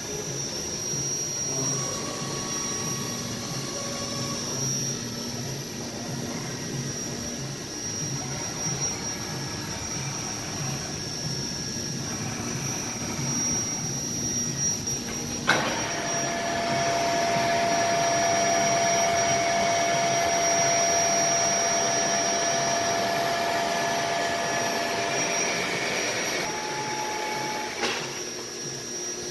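Friedrich Deckel FP 4 A tool milling machine running with a steady motor hum and whine. About halfway through a sharp click is followed by a louder whine made of several steady tones, and another click comes near the end.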